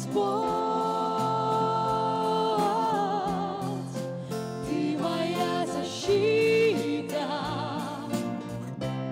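Live Christian worship song: a woman sings long held notes, some with vibrato, backed by keyboard, bass guitar and drums.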